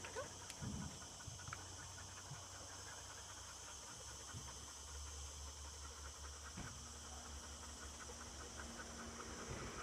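A dog panting faintly and quickly.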